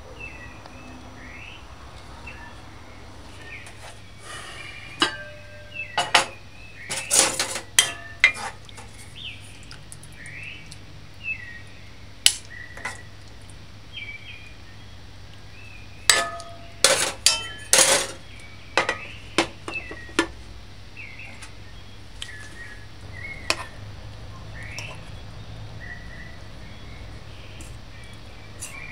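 Metal spoons and cutlery clinking and scraping against a cooking pot and a china plate as curry is dished up, in two busy runs of sharp clinks, one about five seconds in and another about sixteen seconds in.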